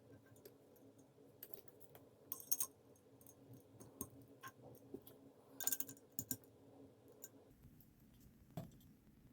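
Light clicks and metallic clinks of small metal fidget-slider parts being handled, with two louder clusters of sharp clicks, about two and a half and about five and a half seconds in.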